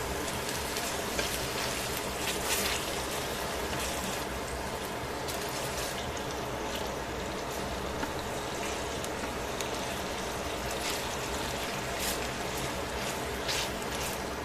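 Chicken pieces sizzling steadily in oil in a stainless-steel frying pan as they are turned with tongs, with a few louder crackles and clicks.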